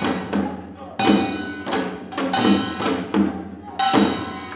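Korean traditional percussion accompanying a mask dance: sharp, ringing metal gong strikes that die away after each hit, mixed with drum beats, in an uneven rhythm of about one or two strikes a second.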